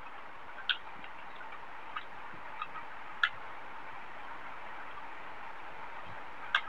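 Close-miked eating by hand: a handful of short, sharp, wet clicks from chewing rice and vegetables, the loudest a little over three seconds in, over a steady hiss.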